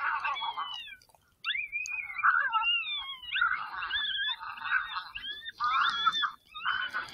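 Several coyotes howling and yipping together: overlapping wavering, sliding high calls over rapid yips, with a brief pause about a second in.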